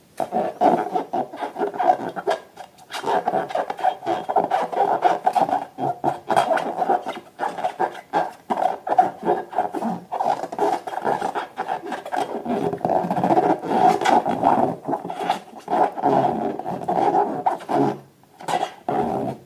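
Rubber balloons being rubbed and squeezed by hand: a dense, almost unbroken run of squeaks and rubbing, with short pauses about three seconds in and near the end.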